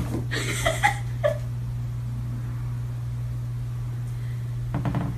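Kitten giving a few short mews in the first second or so, with another short sound near the end, over a steady low hum.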